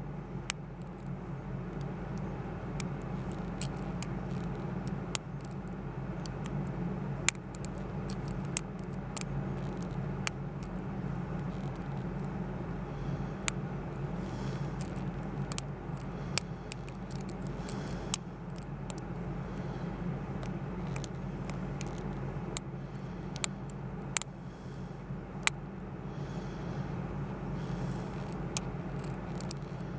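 Steel hook pick working the pin stacks of a Best interchangeable lock core under tension: small, sharp metallic clicks and light scrapes at irregular intervals, over a steady low hum.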